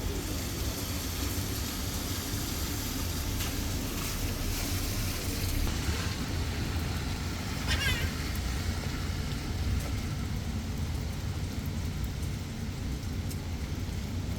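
Heavy rain falling steadily over a low, constant rumble. A brief high warbling chirp sounds about eight seconds in.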